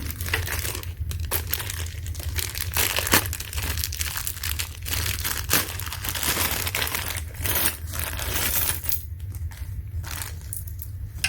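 Packaging crinkling and tearing as it is opened by hand: a dense run of crackles that thins out near the end.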